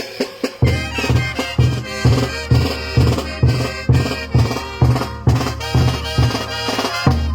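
Festival band music for a chutas dance: wind instruments playing a tune over a steady bass-drum beat of about two strokes a second, the drum coming back in about half a second in.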